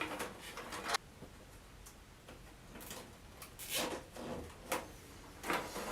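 Cables being handled and pressed into place inside a computer case: rustling and light clicks for about a second, then a pause, then a few more short rustles and clicks.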